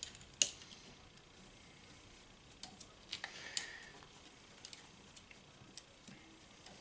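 Faint, scattered clicks and taps of small metal parts being handled as a pawl-type ratchet's back cap is screwed back on during reassembly.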